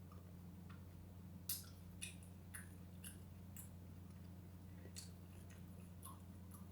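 Mouth chewing crisp food, apple or granola: a few sharp crunches spaced irregularly, roughly half a second to a second apart, the loudest about one and a half seconds in. A steady low hum runs underneath.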